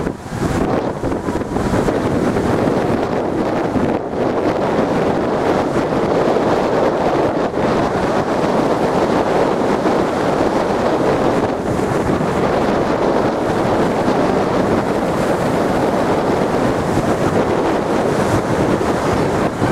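Strong wind buffeting the microphone over stormy sea surf churning and surging against a seawall, a steady loud rushing noise.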